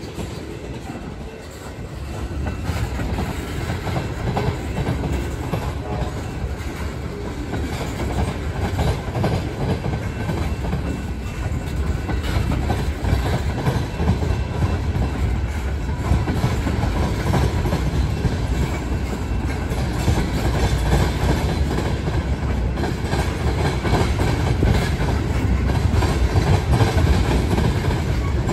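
Freight train tank cars rolling past at low speed, their wheels rumbling on the rails as the train gets under way again after a stop. The rumble grows gradually louder as the train picks up speed.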